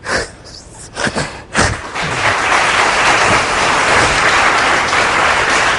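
Studio audience applause: a few separate claps at first, swelling into dense, steady applause about two seconds in.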